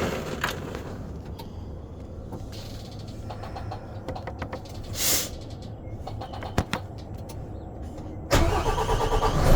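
Volvo VNL truck cab with a few sharp clicks, then about eight seconds in the diesel engine starts and settles into a loud low running rumble.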